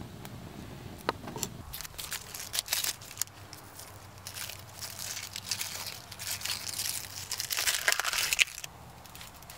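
Dry onion skin crackling and crinkling as it is peeled off a whole onion by hand, in irregular bursts that are loudest about a second before the end. Near the start, a couple of sharp knife taps on a wooden board.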